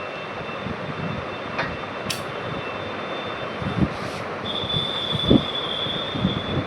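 Small knocks and a couple of sharp clicks from handling laptop parts during RAM reinstallation, over a steady hiss with a thin high whine that grows stronger about halfway through.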